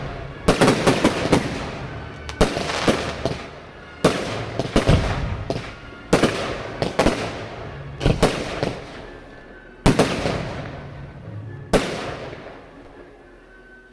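Fireworks display: seven aerial shells bursting, about one every two seconds. Each is a sharp bang followed by a spray of smaller crackling pops that fades away.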